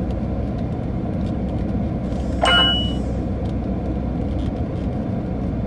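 A single short metallic clang with a ringing tone about two and a half seconds in, over a steady low rumble inside a car.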